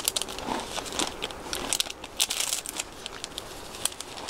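Plastic cookie wrapper crinkling as it is handled, making irregular light crackling clicks.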